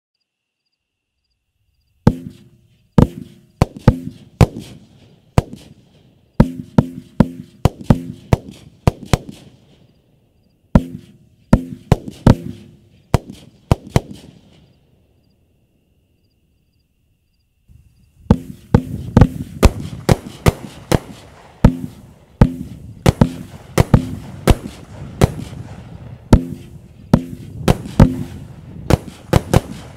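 Two 12-shot consumer fireworks cakes, 'It's a Boy' and then 'It's a Girl', firing. The bangs start about two seconds in, a rapid series of sharp reports as the shells launch and burst, and stop for about three seconds between the two cakes. The second cake's reports come thicker, with a crackling haze between them.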